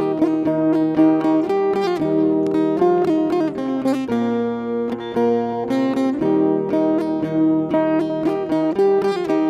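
Background music led by acoustic guitar, plucked and strummed in a busy line of notes.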